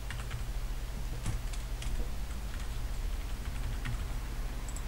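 Computer keyboard keystrokes: a single key tapped over and over at an uneven pace, as a row of identical characters is typed. A steady low hum runs underneath.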